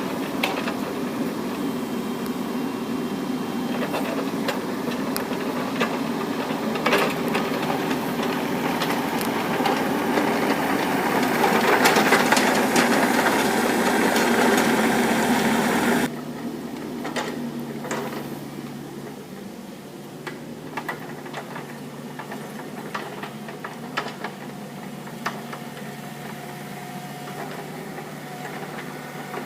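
Kubota mini excavator's diesel engine running with its hydraulics working the 4-in-1 bucket, louder through the first half, then dropping abruptly to a quieter running level about halfway through, with scattered metallic clanks.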